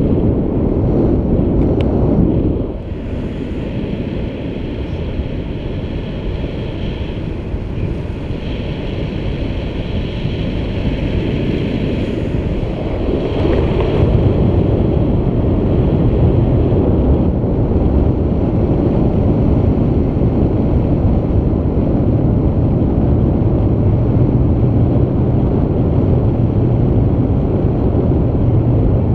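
Wind rushing and buffeting over the camera's microphone during a tandem paraglider flight: a loud, steady rush of air noise. It eases a little a couple of seconds in and builds back up over the next ten seconds or so.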